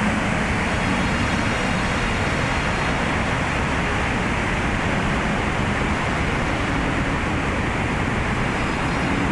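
A river in spate, swollen and near overflowing after days of rain: muddy floodwater churning through the channel and under a bridge with a steady, loud rushing noise.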